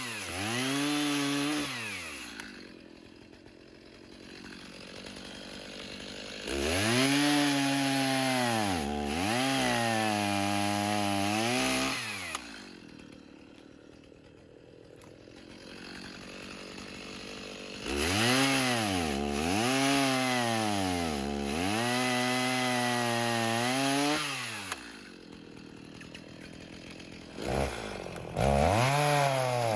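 Stihl MS 290 two-stroke chainsaw cutting post oak: it revs to full throttle in spells of several seconds, its pitch repeatedly sagging under load in the wood and picking back up, then drops back to idle between cuts.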